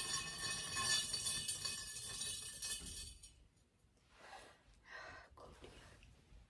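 Background music that fades out about three seconds in, followed by a few faint, soft sounds in a quiet room.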